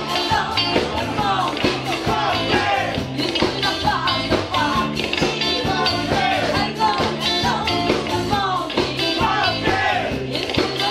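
Live band playing an upbeat disco-rock song: keyboard, electric guitar, bass and drums keep a steady beat while two female vocalists sing.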